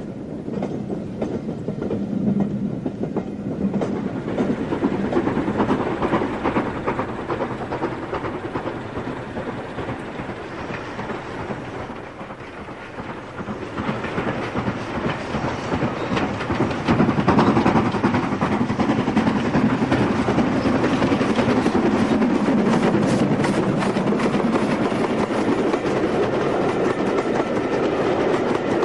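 Steam-hauled train passing: coaches rumbling and clattering over the rail joints, then an LMS Stanier 8F steam locomotive approaching under heavy smoke and passing with its train, growing louder about halfway through and loudest in the second half.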